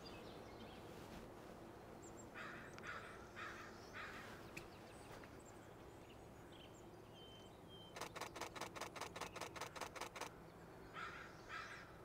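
A camera shutter firing a rapid burst of about a dozen sharp clicks, starting about eight seconds in and lasting about two seconds. Short runs of harsh bird calls come before and after it.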